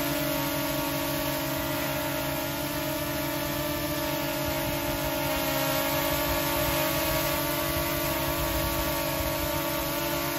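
Small folding quadcopter drone hovering close by: its four propellers give a steady buzzing whine of several held tones that keep an even pitch.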